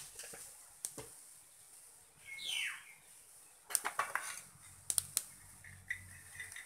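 Sharp clinks of steel kitchen bowls and utensils being handled beside the kadhai, several in quick succession after about three and a half seconds. A bird chirps once, a short falling call, about two and a half seconds in.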